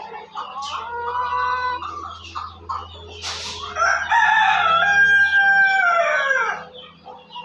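Chickens calling, then a rooster crowing once: a long crow of about three seconds, about four seconds in, falling away at the end. Shorter chicken calls come in the first couple of seconds, and a brief scratchy rustle comes just before the crow.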